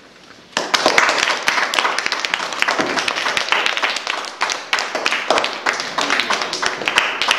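A group of children applauding, starting suddenly about half a second in and going on as a dense, steady clatter of many hands clapping.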